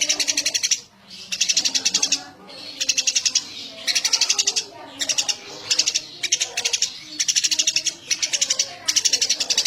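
Eurasian tree sparrow chattering: fast trains of high chirps in bursts of under a second, coming about once a second with short gaps between them.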